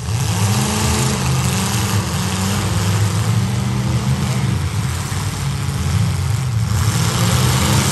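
Demolition derby cars' engines running hard and revving, their pitch rising and falling as they shove and ram each other in the dirt arena.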